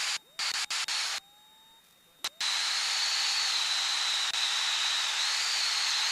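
Steady hiss of a Piper Cherokee's in-flight cabin noise heard through the headset intercom, with a thin high whine running through it. It cuts out abruptly several times in the first couple of seconds, then runs on evenly.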